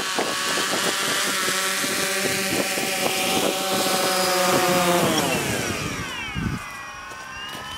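Quadcopter drone's propellers buzzing steadily as it hovers just above the ground, then about five seconds in the pitch falls and the buzz gets quieter as it sets down and the motors slow.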